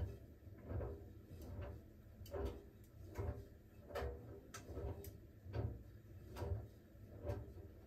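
Siemens iQ700 washing machine drum turning slowly in the smartFinish steam programme, tumbling a shirt: soft thuds and clicks roughly once a second as the laundry falls, over a low motor hum.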